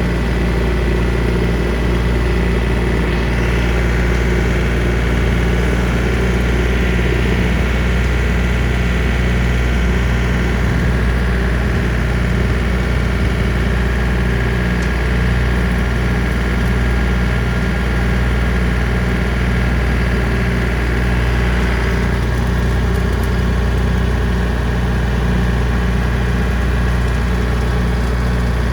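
John Deere 3025D compact tractor's three-cylinder diesel engine running steadily at constant throttle while pulling and powering a rotary brush hog in first gear, low range. A high whine rides over the engine note and eases off about twenty-two seconds in.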